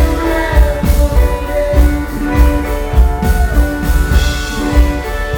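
Live rock band playing: sustained guitar chords over a steady kick-drum beat, with a sung vocal line.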